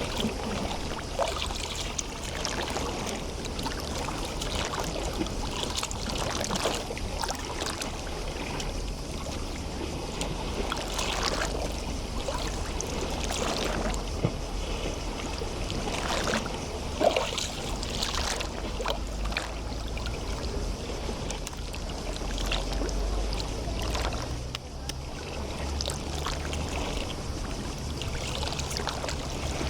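Small waves lapping and splashing at the water's edge in a calm bay, with irregular sharp slaps of water over a steady wash and a low rumble underneath.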